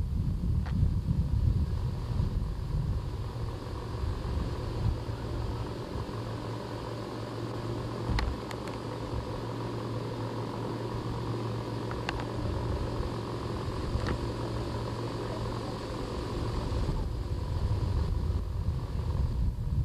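Wind rumbling on the microphone over a steady low hum, with a few faint clicks.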